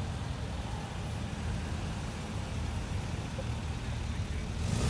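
Classic cars driving slowly past at low revs, a steady low engine rumble that grows louder near the end as an MGB roadster comes closer.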